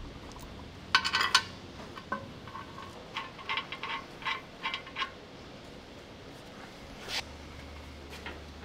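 Metal clinking of nuts and a spanner on an old steel drive sprocket being bolted onto its hub: a cluster of ringing clinks about a second in, then a run of lighter clinks from about three to five seconds and one more near the end.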